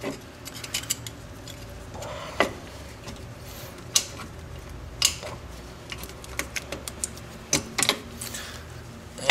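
Scattered sharp metallic clicks and clinks as a brake shoe hold-down clip is worked onto its pin against the steel shoe and backing plate of a rear drum brake.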